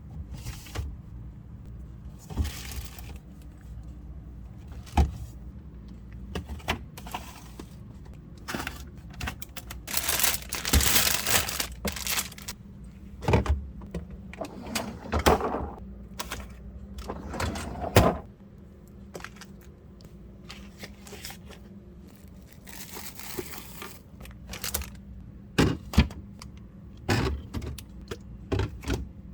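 Scattered clunks, clicks and rubbing as items and fridge parts are handled during cleaning, with a few seconds of rough hissing scrubbing noise about ten seconds in, over a steady low hum.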